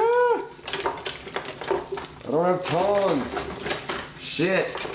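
Food sizzling in a frying pan, with the clicks and scrapes of kitchen utensils against pans and dishes. Four short squeaky tones rise and fall in pitch, one at the start, two in the middle and one near the end.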